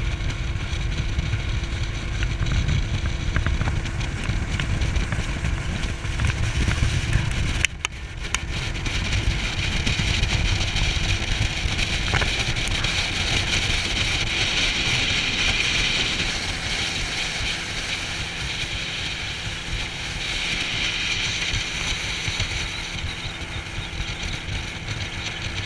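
Outboard motor of a small fishing boat running at speed, under a heavy low rumble of wind on the microphone and a hiss of water rushing past the hull. The sound drops out briefly about eight seconds in.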